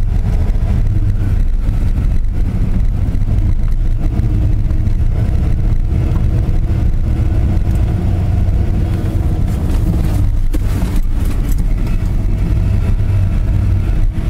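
1992 Ford F-150 pickup driven through tight figure-eight turns, its engine and drivetrain running steadily as heard from inside the cab. The tight turns test the newly installed Spartan locker in the Ford 8.8 rear differential for ratcheting.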